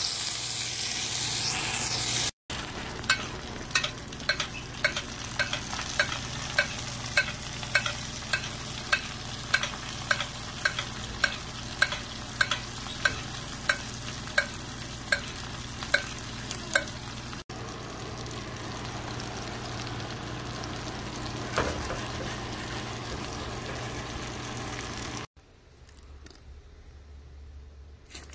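Rack of lamb sizzling in a cast iron pan, loudest in the first couple of seconds. Then a metal spoon clinks against the pan a little under twice a second as foaming butter is basted over the meat, over steady frying. Near the end the frying stops and it goes much quieter.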